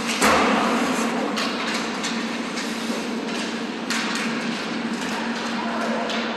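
Hockey on an ice rink: a sharp bang about a quarter second in, loudest of all, then scattered clacks of sticks and pucks over the hiss of skates on the ice. A steady low hum runs underneath.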